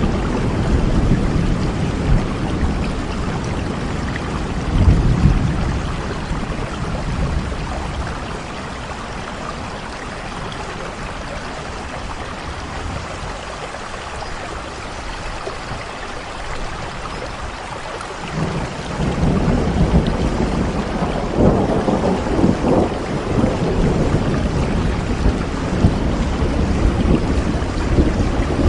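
Steady rain with low rolling thunder. The rumbling is heavy at first and eases off a few seconds in, leaving mostly rain. The thunder builds again about two-thirds of the way through.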